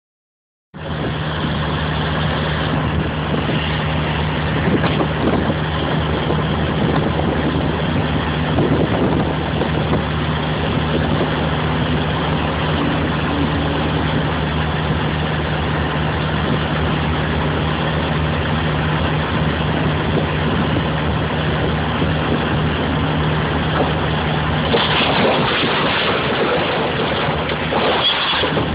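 Large mining excavator running with a steady engine drone and a constant low hum. Near the end the hum drops out and a louder, rougher noise takes over as the bucket comes down and crushes a pickup truck flat.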